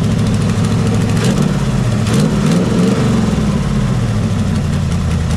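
Shelby Cobra replica's 350 V8 idling, with one short rev about two seconds in, its pitch rising and then falling back to idle.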